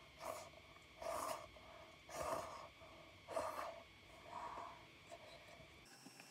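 Short, breathy mouth sounds from a person eating cup noodles, five in a row about a second apart.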